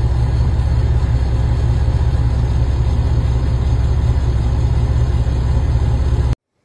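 Vehicle engine running, heard from inside a vehicle as a steady, loud, low rumble that cuts off abruptly near the end.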